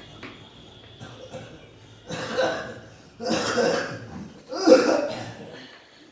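A person coughing three times, each cough about a second long, the last the loudest.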